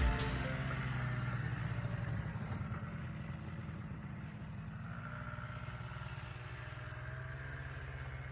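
Two-stroke snowmobile engine running steadily. It fades over the first few seconds, then holds at an even, idle-like level.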